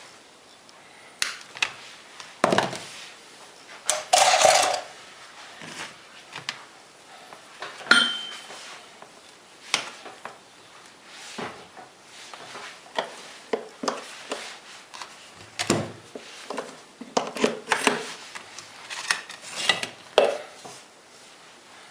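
Irregular metallic clicks, clinks and knocks of a Makita GA4530R angle grinder and its parts being handled and fitted together by hand, a few with a short ring.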